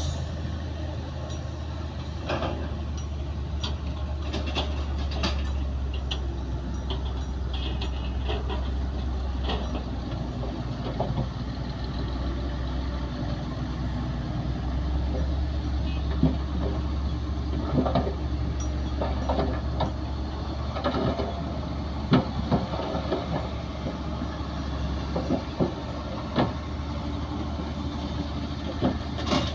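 Crawler bulldozer working: its diesel engine runs with a steady low drone while the tracks and blade give off frequent short clanks and knocks, more of them in the second half.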